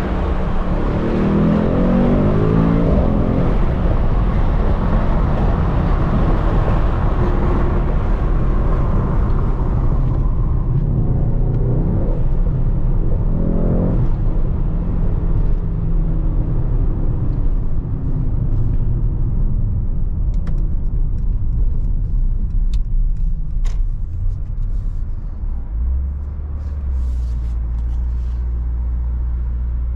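Mercedes-AMG GT63 S twin-turbo V8 on the move: engine pitch rises and falls through the gears under heavy road noise for the first ten seconds or so, with one brief rev-up about halfway. It then eases off, a few faint clicks are heard, and it settles into a steady low idle near the end.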